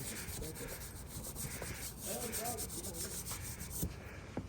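Faint, fast rubbing noise made of many small quick strokes, with a faint voice around two seconds in.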